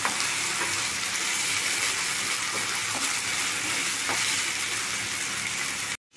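Onion, garlic and Schezwan sauce sizzling in oil in a nonstick frying pan while a wooden spatula stirs and scrapes them, a steady frying hiss with a few light scrapes. The sound cuts off abruptly just before the end.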